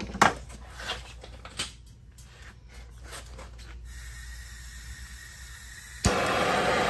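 A few clicks and knocks of tools being handled, then a faint hiss of gas from about four seconds in. About six seconds in, a handheld gas torch lights with a sudden loud onset and its flame burns steadily, heating a seized wheel bearing to free it.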